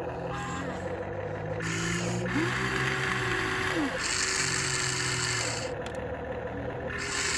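Small electric gear motors of a radio-controlled construction model whirring, starting and stopping several times with the pitch sliding up and down as the motors speed up and slow.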